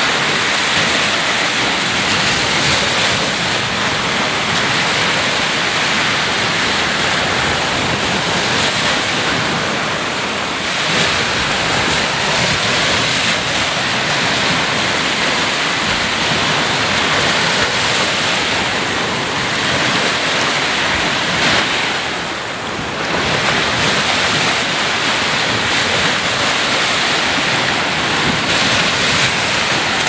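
Ocean waves breaking and washing ashore: a steady surf hiss with two brief lulls, about a third of the way in and about three quarters through.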